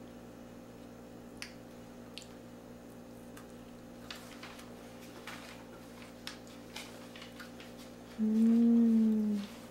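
Faint wet clicks and smacks of a toddler biting and chewing an Oreo cookie, then, near the end, a voice humming one held 'mmm' for a little over a second, the loudest sound.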